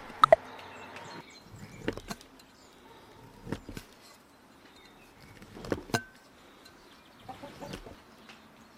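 A large knife chopping down through a stack of layered pasta dough sheets onto a wooden cutting board: short sharp knocks every second and a half or two, some of them doubled, the loudest right at the start.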